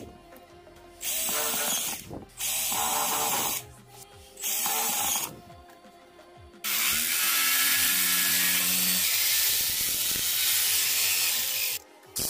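Power tool cutting into a plastic electrical junction box lid: several short bursts of a second or so, then one long run of about five seconds. The long run is an oscillating multi-tool cutting out the opening for a socket.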